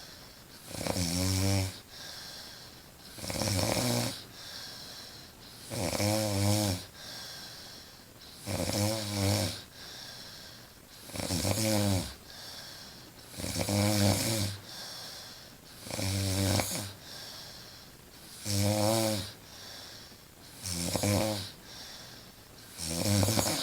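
A woman snoring loudly while asleep: about ten long pitched snores at an even pace, one every two and a half seconds or so, with quieter breathing between them.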